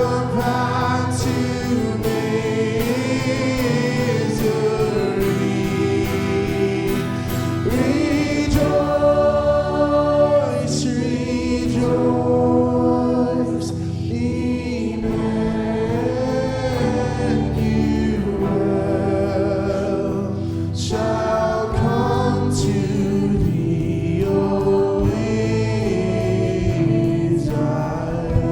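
A worship band and congregation singing a slow hymn together, with instrumental accompaniment and long, held sung notes.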